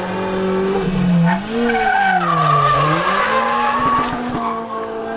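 Rally car engine revving, its pitch dropping and climbing again twice before holding steady, with tyres squealing through the middle.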